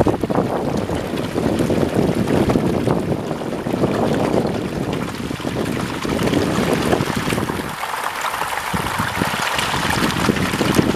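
A packed swarm of hybrid magur catfish thrashing and splashing in shallow water as they mob a pile of feed: a continuous crackling churn of wet slaps. About eight seconds in the low rumble drops away for a couple of seconds, leaving a thinner, hissier splashing.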